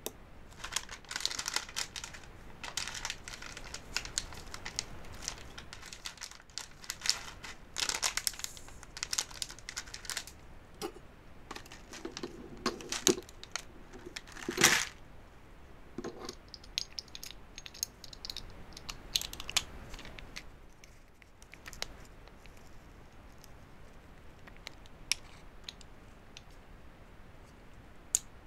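Irregular crinkling and rustling, like packaging being handled, with scattered sharp clicks. The busiest stretch is in the first ten seconds, with one loud snap about fifteen seconds in, and then sparser clicks.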